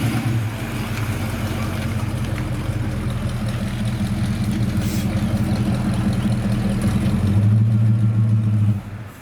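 1970 Buick Wildcat's V8 running steadily at idle on a newly fitted Quadrajet carburetor that has not yet been adjusted. It gets louder for the last second or so, then cuts off abruptly just before the end.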